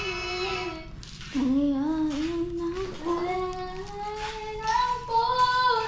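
A child's voice singing a slow, wavering melody with held notes, after a long held sung note that fades out about a second in.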